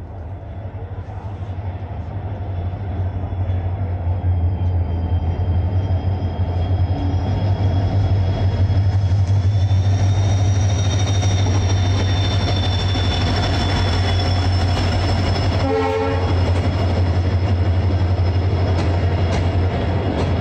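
EMD diesel locomotive and its train approaching and passing along the platform, a heavy low rumble growing louder over the first eight seconds, with a steady high whine, then the coaches rolling by. A brief pitched toot sounds about sixteen seconds in.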